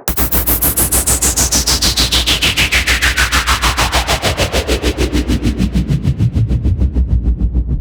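Synthesized downlifter sound effect: a pulsing, gated noise sweep that falls steadily in pitch from a high hiss to a low rumble over about seven seconds, chopped about eight times a second, over a steady deep bass drone. It starts suddenly.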